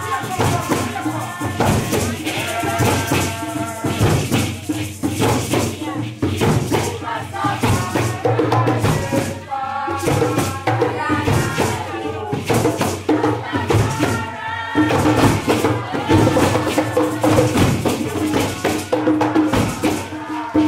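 Music with shaker-style rattle percussion keeping a steady rhythm, and a voice carrying over it.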